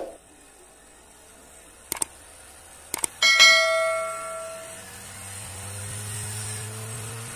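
Subscribe-button sound effect: a few mouse clicks, then a bell ding that rings and fades over about a second and a half. After that the homemade ducted fan's small electric motor starts up as its speed controller is turned, a low hum that grows louder and slowly rises in pitch.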